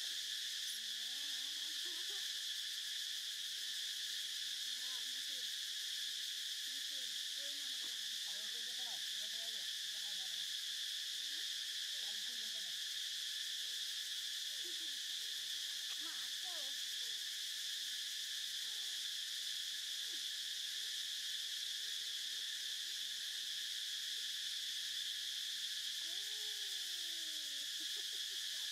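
Steady high-pitched chorus of insects droning without a break, with faint short calls scattered underneath and one clearer call that rises then falls near the end.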